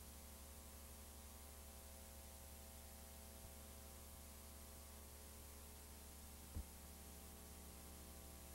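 Near silence: a faint, steady electrical hum with hiss from an old videotape transfer, and one brief low pop about two-thirds of the way through.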